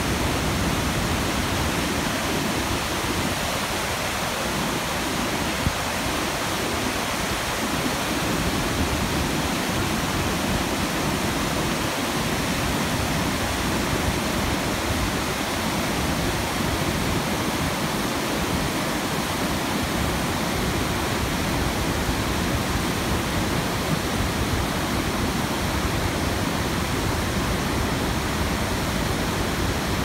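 Wide waterfall and its whitewater rapids rushing steadily over and between large boulders, a continuous even rush of water.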